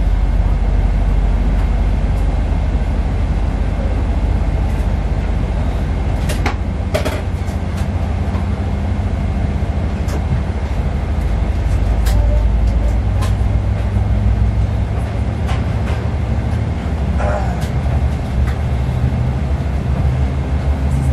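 Boeing 777-300ER passenger cabin noise: a steady low rumble and hum from the aircraft, with a few short clicks and knocks scattered through it.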